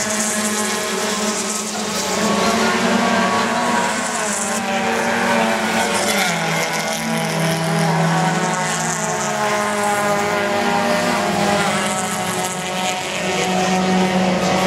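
Several 1600 cc touring race cars' engines running together at racing speed, their overlapping pitches rising and falling as the cars pass.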